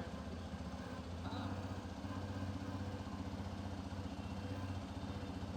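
Hero Xpulse 210's single-cylinder engine idling steadily, with a buzzing vibration from some part of the brand-new bike that the owner has not yet traced.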